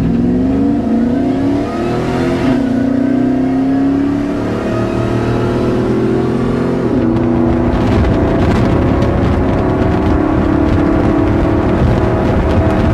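Ford F-150 SVT Lightning's supercharged V8 at full throttle, heard from inside the cab, its pitch climbing through the gears with upshifts about 2.5 and 7 seconds in.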